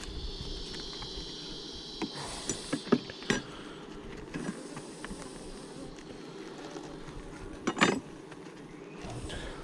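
Honeybees buzzing around an open hive, with sharp clicks and knocks of wooden hive frames being pried loose and lifted out. There are several knocks about two to three seconds in and the loudest one near eight seconds.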